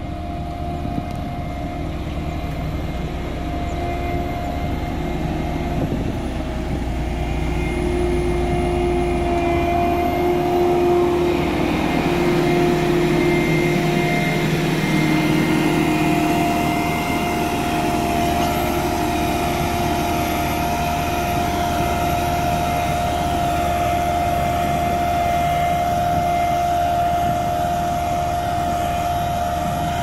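BOMAG BW 211 single-drum padfoot roller running with a steady diesel drone and a high steady hum. It grows louder as the machine passes close around the middle, then eases a little as it moves away.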